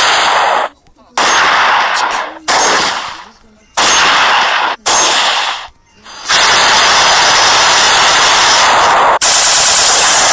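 Gunshot sound effects: five separate loud shots in the first six seconds, each fading out over about a second, then about three seconds of unbroken rapid automatic fire that gets louder near the end.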